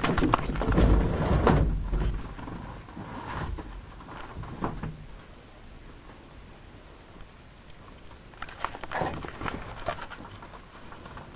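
Irregular rustling and bumping of a camera being handled and moved around, loudest in the first two seconds and again around nine seconds in.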